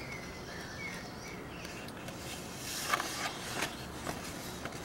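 A picture book's page being turned, a short rustle of paper about halfway through, with a few faint bird chirps in the first second.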